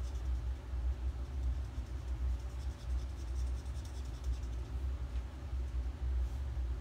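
Soft scratching of an alcohol marker's brush tip stroking over paper as a flower is coloured in, over a steady low rumble from a running home furnace.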